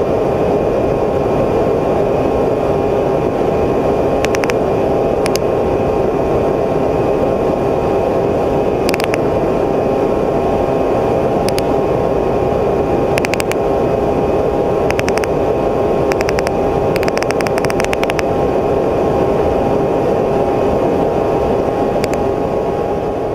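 Camera drone's motors and propellers humming steadily with a few steady whining tones, and short clicks scattered through; the sound fades out near the end.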